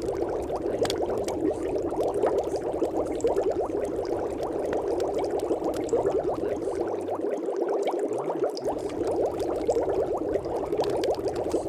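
Steady background sound bed of dense, fine crackling, like bubbling liquid, with no audible words. It is the masking track of a subliminal recording, under which the affirmations are hidden.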